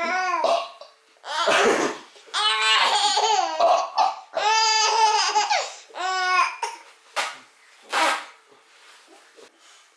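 A five-and-a-half-month-old baby laughing hysterically in repeated high-pitched squealing bursts, fading to short catches of breath near the end.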